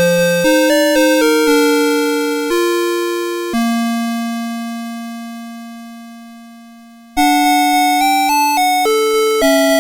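A CITIZEN Melody Box 30 alarm clock's electronic melody chip playing a simple beeping tune, each note starting sharply and dying away. The tune ends on a long note that fades out over about three and a half seconds, and a new melody begins abruptly about seven seconds in.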